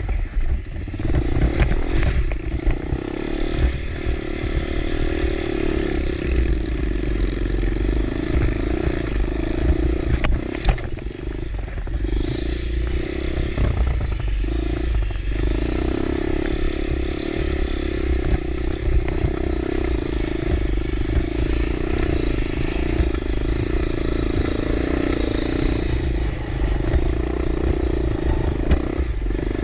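Motorcycle engine running steadily while riding a rough dirt trail, with scattered clatter and knocks from the bike over the ground. The engine note eases off and picks up again a few times near the middle.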